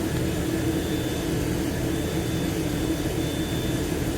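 Steady mechanical hum of a running motor, even in level throughout.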